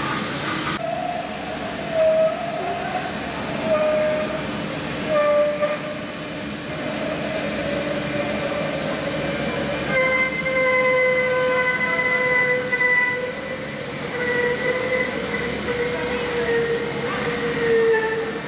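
CNC router milling a styrofoam block: the spindle runs with a steady hiss of cutting, overlaid by whining motor tones that shift in pitch as the cutting head moves, coming in short stretches at first and holding steadier from about ten seconds in. The sound changes abruptly just under a second in.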